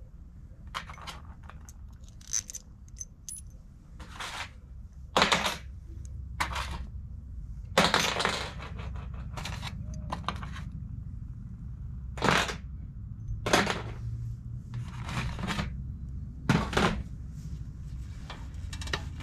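Metal hardware clinking and clattering in a dozen or so irregular knocks and short rattles, over a steady low rumble.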